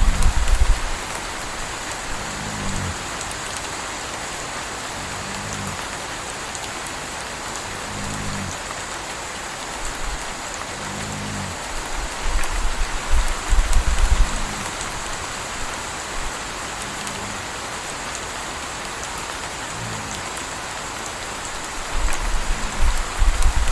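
Steady rain falling, with a puppy snoring in a slow rhythm, about one snore every three seconds. Deep low rumbles swell three times: at the start, around halfway, and near the end.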